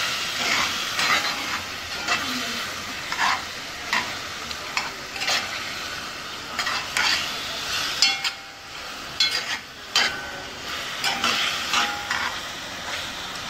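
Chicken pieces sizzling as they fry and brown in burnt sugar in a pot. A spoon stirs them, knocking and scraping against the pot at irregular moments.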